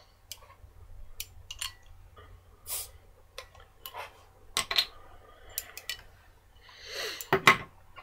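Scattered light clicks and knocks of a glass beer bottle and a glass being handled on a table, with a short rustle and a louder knock near the end.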